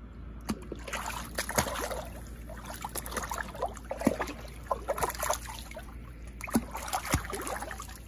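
Water sloshing and splashing in a shallow inflatable kiddie pool as a small dog wades and paws at a ball under the water. Irregular sharp splashes and short gurgles come throughout.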